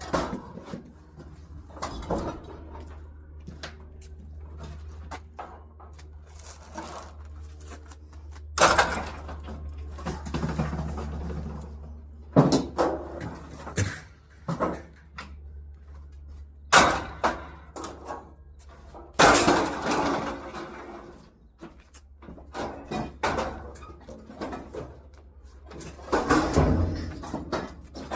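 Discarded scrap items, largely metal, being handled and dropped, with irregular clanks and clattering bangs; the loudest come about 9, 12, 17, 19 and 26 seconds in, over a steady low hum.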